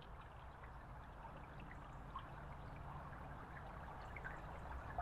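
Faint, steady trickling of running water from a stream, with a low steady rumble underneath.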